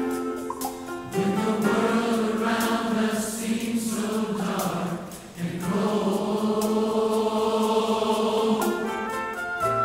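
A slow gospel ballad sung by a few vocalists in harmony, accompanied by piano, acoustic guitar and strings. Two sung phrases, with a short breath about five seconds in.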